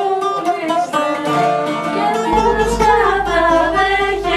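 Bouzouki being plucked, with a voice singing a melody over it; a low steady bass note comes in about halfway through.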